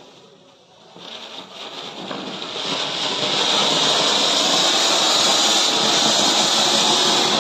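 An Anil-brand anar (flower-pot fountain firework) burning: its hiss rises from about a second in and holds loud and steady from about three seconds as it sprays full height.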